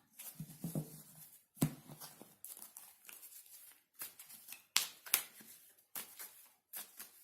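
Tarot cards being handled and shuffled by hand: a run of short, crisp swishes and taps, with a sharper knock about one and a half seconds in.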